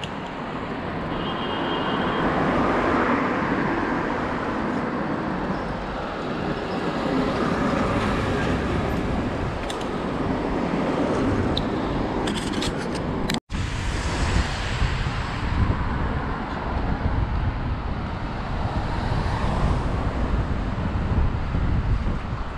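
Wind rushing over the microphone of a camera riding on a moving bicycle, mixed with city street traffic noise. The sound cuts out for an instant about halfway through.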